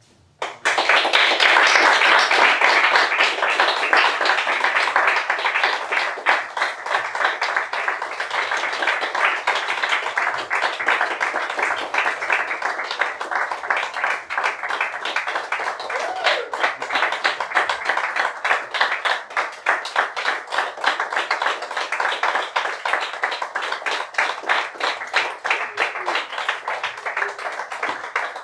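Audience applauding, starting suddenly about half a second in and keeping up a dense patter of individual hand claps that eases slightly toward the end.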